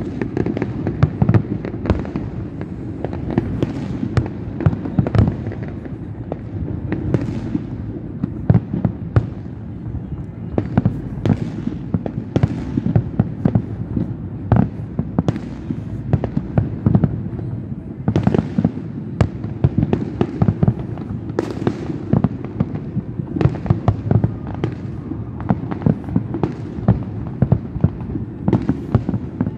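A fireworks display going off in a dense, unbroken barrage: sharp bangs of varying strength, several a second, over a steady low rumble.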